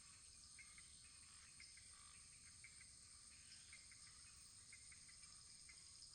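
Faint insect chorus: a steady high trilling with short chirps about once a second.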